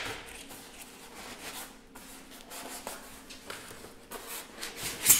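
Cardboard box being opened by hand: a knife scraping along the taped cardboard, then the flaps and packing inside rustling and scuffing, with one sharper, louder rasp near the end.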